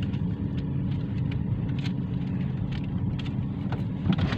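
Steady low hum of a car's cabin while driving, with short, irregular clicks scattered over it.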